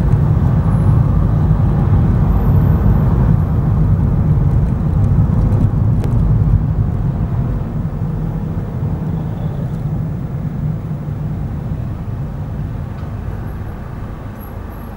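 Car engine and road noise while driving, a steady low rumble that grows gradually quieter through the second half as the car slows to a stop in the queue.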